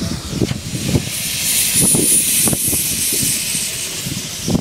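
Narrow-gauge steam locomotive standing and venting steam low at the front by its cylinders: a loud steam hiss that starts about a second in and eases off near the end.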